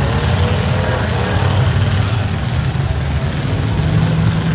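Engines of V8 stock-class demolition derby cars running, a loud, steady, deep engine sound with no single crash standing out.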